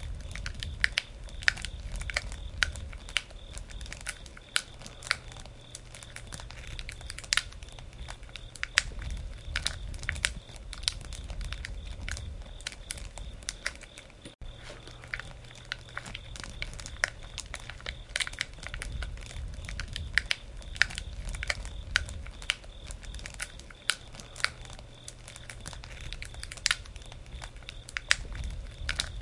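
Campfire crackling: irregular sharp pops and snaps, several a second, over a low rumble of the flames.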